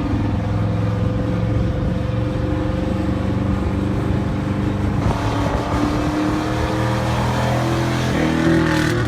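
Vehicle engine running under way, its pitch rising slowly. From about five seconds in, a rushing road and wind noise grows louder.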